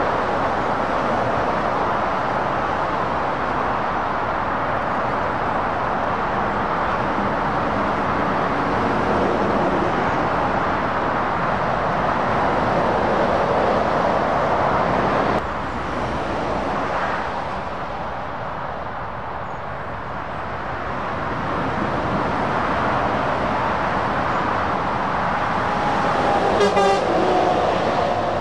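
Road traffic: heavy lorries and cars passing at speed, a steady rush of engine and tyre noise that drops back for a few seconds partway through. Near the end a vehicle horn sounds for about a second and a half, falling slightly in pitch as it goes by.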